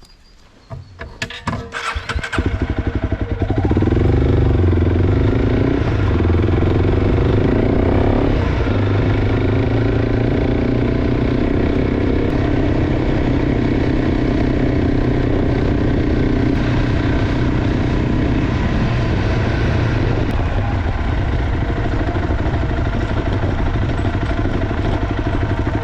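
Honda CRF300 Rally's single-cylinder engine, fitted with an aftermarket exhaust, coming in about two seconds in after a few clicks and then running steadily as the bike is ridden. Its pitch rises and falls a little during the first several seconds, then holds even.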